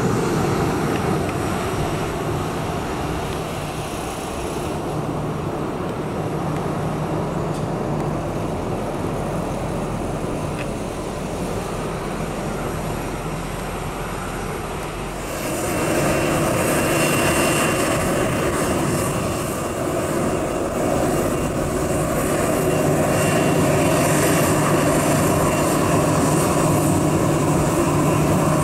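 Boeing 737-800's CFM56-7B turbofan engines running at taxi power as the airliner taxis, a steady jet rumble. About halfway through it grows louder and a high-pitched turbine whine comes in.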